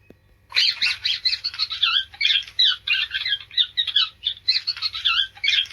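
A small rodent (tikus, a mouse or rat) squeaking: a fast run of short, high-pitched squeaks, several a second, starting about half a second in.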